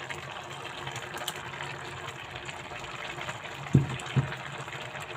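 Steady hiss of a pot of jollof rice cooking on the stove, with two short low thumps about two-thirds of the way through.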